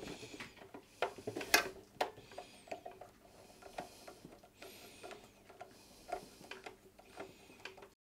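Hand screwdriver driving the cover screws back into the metal case of a QNAP TVS-x72XT NAS: irregular small clicks and short metal scrapes, the loudest about a second and a half in.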